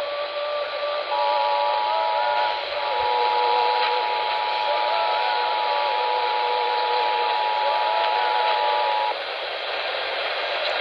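EAS two-tone attention signal, two steady tones sounding together, heard through a static-laden radio with a steady hiss. The tones break off at the start, resume about a second in and stop about a second and a half before the end, leaving only radio hiss.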